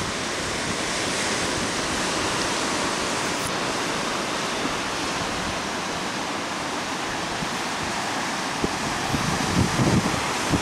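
Ocean surf breaking on a rocky shore below: a steady rushing wash. Wind buffets the microphone in a few gusts near the end.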